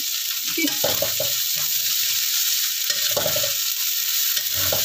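Rice vermicelli and winged beans sizzling steadily in a hot wok, with a spatula scraping and tossing it in a few strokes. The noodles are being fried hard so they catch a little crust on the pan.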